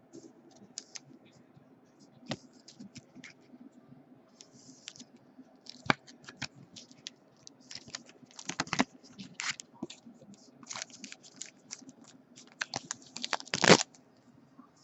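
Trading cards being handled and slid through by hand: a run of irregular light clicks and scratches, with one louder snap near the end.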